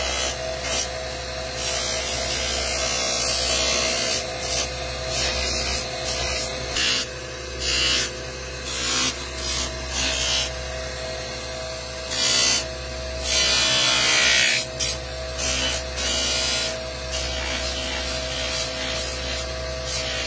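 Electric buffing motor running with a steady hum while a horn spoon is pressed again and again against its spinning cloth wheel, each contact giving a hissing rub. The rubs come at irregular spacing, the longest about two-thirds of the way through.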